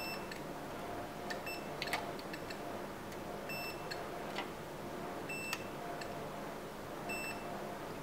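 Digital multimeter's continuity beeper giving short, high beeps about every two seconds as the test probes touch points on a TV main board being checked for short circuits. A few light clicks come between the beeps.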